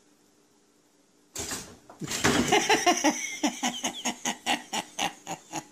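Almost quiet for about a second, then a sudden loud burst and a run of rhythmic bursts, about four a second, that slow down and fade: a person laughing hard.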